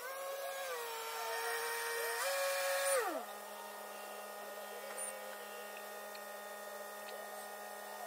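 A motor running with a steady hum whose pitch steps up and down, then drops sharply about three seconds in and holds low.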